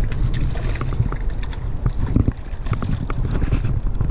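Wind buffeting the microphone in a heavy low rumble, with scattered small knocks and clicks.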